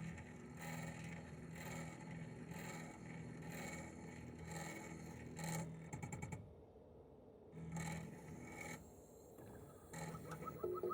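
Toshiba RAS-285BAD outdoor unit with a twin rotary compressor, starting abruptly and running in cooling mode: a low hum with a pulsing noise about every two-thirds of a second. Near the end a steady higher whine with fine ticking comes in.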